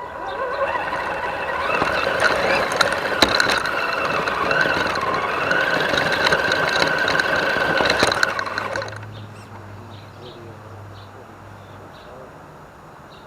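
Axial SCX10 DeadBolt RC crawler's 27-turn electric motor and gear train whining as it drives, the pitch rising and falling with the throttle, with clicks and knocks of tyres and chassis on rock. The motor stops about eight and a half seconds in, leaving faint high chirps over a quiet outdoor background.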